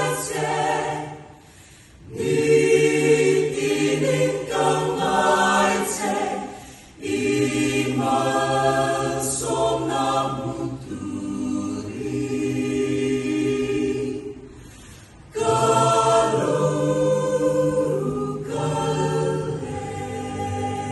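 Mixed choir of women's and men's voices singing a cappella, holding chords in phrases with three short breaks, about a second and a half in, around six and a half seconds, and around fourteen seconds in.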